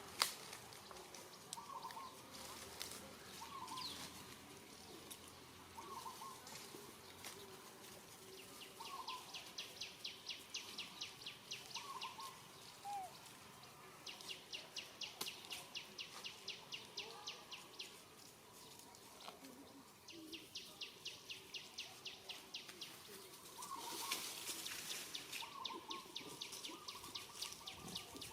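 Faint chirping: four runs of fast, evenly spaced high pulses, each lasting two to four seconds, over short scattered chirps.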